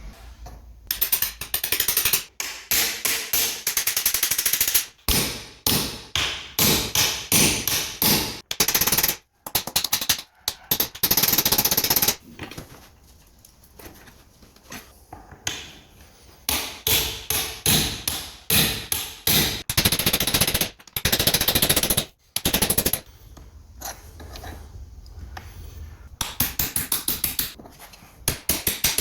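Bursts of rapid, sharp hammer blows on the bent metal frame of a fishing bed chair, knocking it back straight, with short pauses between the runs.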